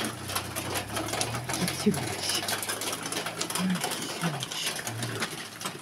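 A cat purring steadily close up while being stroked, with the rustle of a hand on its fur.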